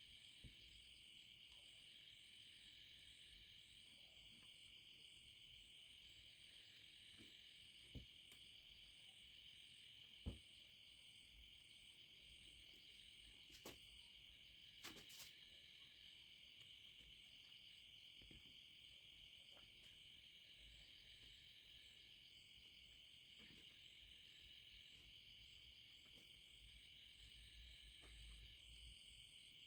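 Near silence: a faint steady high-pitched hiss, with a few soft clicks, about five in all, scattered through the middle.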